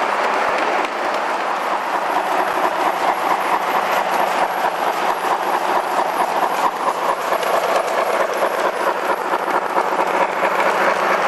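Gauge 1 model express train, double-headed by two KM1 class 85 steam locomotives, rolling steadily along the track, with a rhythmic beat of about four a second from about two seconds in.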